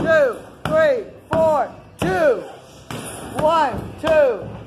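Rapid roundhouse kicks smacking into a padded kick shield, about seven strikes evenly spaced roughly 0.7 s apart. Each impact comes with a short vocal grunt that rises and falls in pitch.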